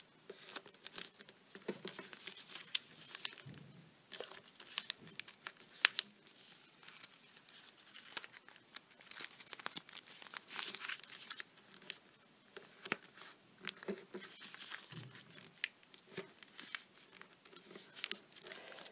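A square of origami paper being folded and creased by hand: irregular crinkling, rustling and sharp crackles as the paper layers are bent and pressed flat, with one louder crack about six seconds in.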